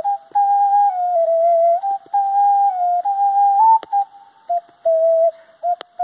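Ocarina played solo: an improvised melody of clear, whistle-like held notes stepping up and down in short phrases, with brief breaks between them. Two sharp clicks sound in the second half.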